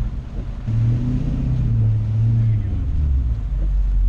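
Pickup truck engine running, heard from inside the cab as a low steady hum that drops to a lower pitch about two and a half seconds in.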